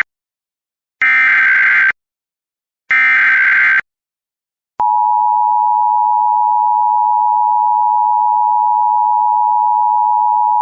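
Emergency Alert System SAME header: two short, harsh data bursts about a second each and a second apart, the digital code that announces the alert and triggers EAS receivers. About five seconds in, the EAS attention signal starts abruptly: a steady, loud two-tone 853 and 960 Hz tone that holds.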